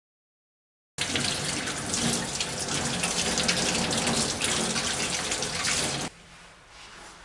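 Tap water running into a stainless steel sink and splashing over hands being washed. It starts about a second in and cuts off suddenly about six seconds in.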